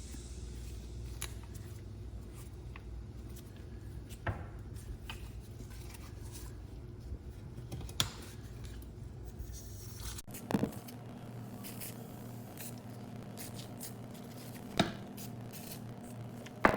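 Handling sounds while working on an old metal hand-cranked knife cleaner: a handful of sharp clicks and knocks spaced several seconds apart, over a steady low hum. The background hum changes abruptly about ten seconds in.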